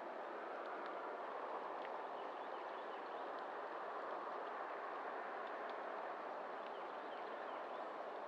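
Outdoor ambience on a pine and palmetto scrub trail: a steady rushing background noise with faint, short, high chirps scattered through it.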